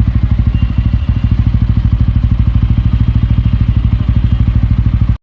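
TVS Ronin's 225cc single-cylinder four-stroke engine idling steadily, its exhaust giving an even, rapid thump with no change in pitch.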